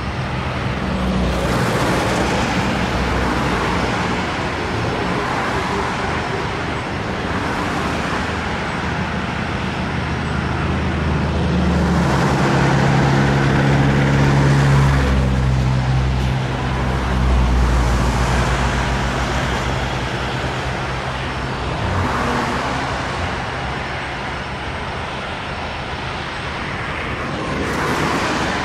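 Airbus A330-900neo's Rolls-Royce Trent 7000 turbofans running at low taxi thrust: a steady jet rumble and hiss with a low hum, swelling and easing in loudness every few seconds.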